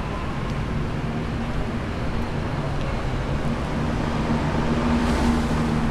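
Street traffic, with the steady low hum of a vehicle engine running close by that grows louder over the last couple of seconds.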